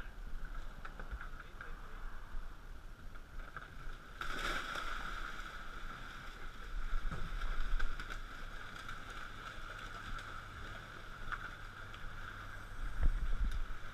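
Water splashing as a school of jack crevalle and pelicans churn the surface beside the dock. The splashing is loudest for a few seconds in the middle, over a steady background hum.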